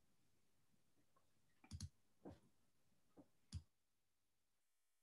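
Near silence with a few faint clicks from a computer mouse and keys: a quick double click a little under two seconds in, then three single clicks. Just before the end the audio cuts to dead silence.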